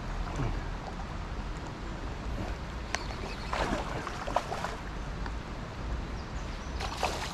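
Steady rushing noise of water at a river weir, with wind on the microphone, broken by a few short clicks and a crackling rustle about halfway through, as an angler plays a hooked fish.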